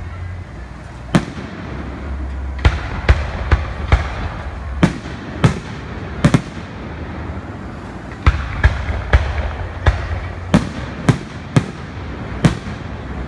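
Aerial firework shells bursting: a string of sharp, loud bangs at irregular intervals, about seventeen in all, some coming in quick pairs.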